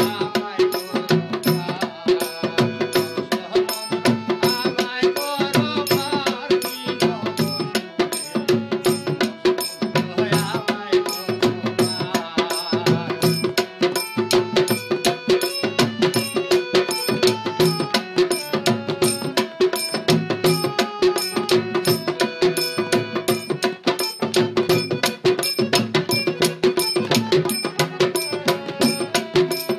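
Music from a Bengali song: fast, steady percussion over a held low drone note, with a wavering melodic line coming in twice.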